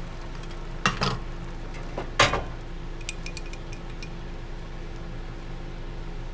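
Glass jar being opened and spooned from: a couple of sharp clicks about a second in and a louder knock about two seconds in, then light clinks of a spoon against the glass, over a steady low hum.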